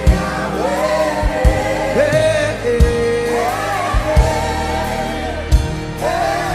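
Gospel worship music: voices singing long held notes, sounding like a choir, over sustained keyboard or pad chords, a steady bass line and a slow, regular kick drum.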